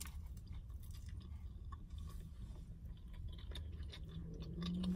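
A bite into a crunchy fried chicken sandwich, then faint chewing with small crunches of the breading. Near the end comes a short, low, closed-mouth hum.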